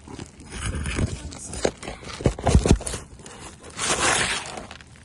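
Asphalt roof shingles scraping and tearing as a damaged shingle is pried out, with a quick run of sharp knocks about two seconds in.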